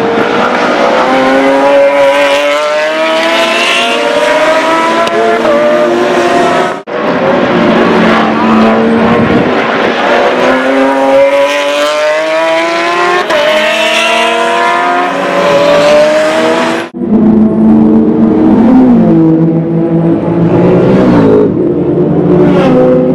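Porsche 911 GT1's 3.2-litre twin-turbo flat-six accelerating hard, its note climbing through several upshifts. This happens twice, the two runs separated by a sudden cut. Near the end the engine runs at low revs with a couple of short throttle blips.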